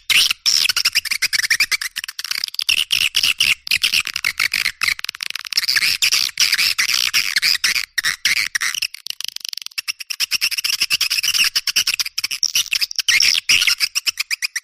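Bird-lure recording of songbird chirping: a dense, fast run of high chirps and twitters with no pauses longer than a moment, chopped by many tiny gaps from editing.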